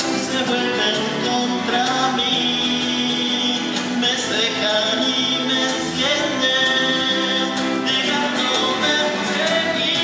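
Live folk band playing: several strummed acoustic guitars and a small charango-type guitar over a drum kit, with men's voices singing.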